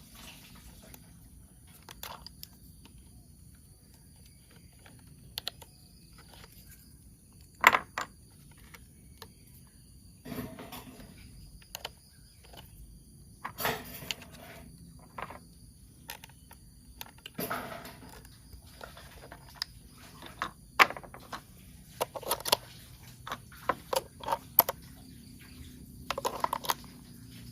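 Toy train parts being handled and fitted together by hand: irregular clicks, knocks and short rustles, a few sharper taps standing out.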